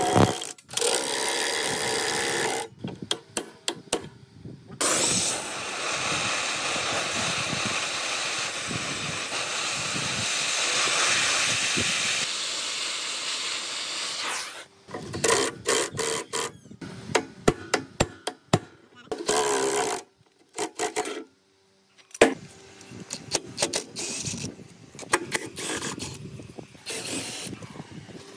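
A gear puller worked on a rusted V-belt pulley on an electric motor shaft: sharp metal clicks and knocks, then a gas torch hissing steadily for about ten seconds as it heats the pulley hub. After the torch stops come more scattered metallic clicks and knocks as the puller and tools work the pulley loose.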